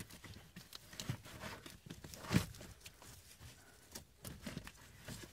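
Old pleated cabin air filter being pulled out of its plastic housing: scraping and rustling of the filter against the housing, with a sharper knock about two and a half seconds in.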